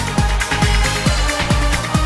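Electronic dance music with a steady kick drum beating a little over twice a second.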